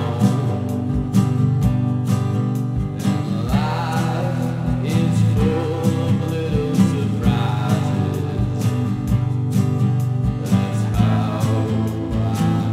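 Background music: guitar-led song with a steady beat.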